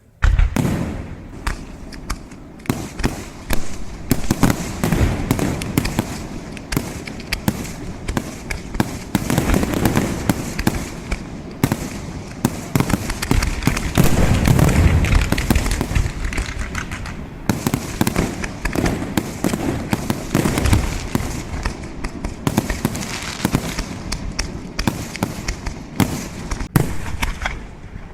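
Fireworks display: a dense, continuous barrage of sharp bangs and crackling over a low rumble of booms. It starts suddenly and is heaviest about halfway through.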